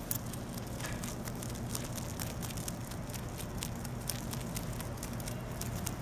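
Rabbit chewing a fresh lemongrass blade close to the microphone: rapid, irregular crunching clicks over a steady low background hum.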